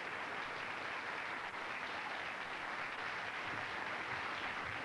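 Studio audience applauding steadily, many hands clapping together.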